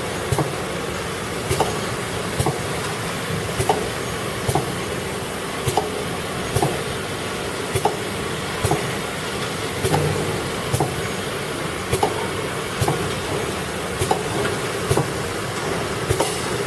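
Six-nozzle syrup bottle filling machine running: a steady mechanical hum with a sharp click about once a second.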